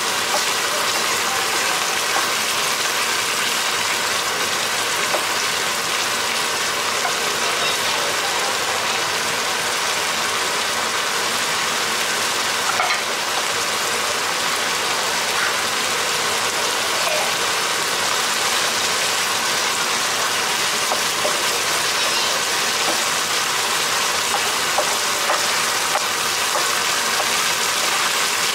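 Ground beef, onion, tomato and herbs sizzling steadily in oil in a frying pan, with a few light clicks as a wooden spoon stirs them.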